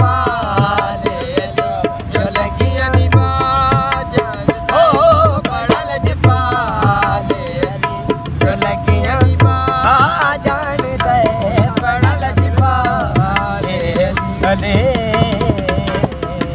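A man singing a Punjabi devotional song in a wavering, ornamented line, accompanied by a dholak barrel drum played with the hands. The drum's deep bass strokes fall in short rhythmic clusters.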